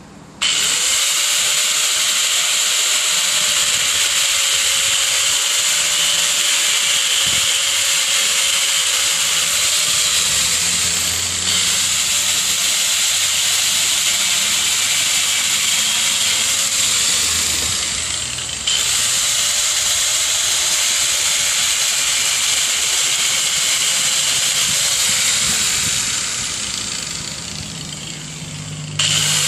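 Corded angle grinder running against PVC pipe with a loud, hissing whine. It runs in three long stretches, briefly dropping in pitch and catching again about 11 and 18 seconds in. It winds down near the end and starts up again at the last moment.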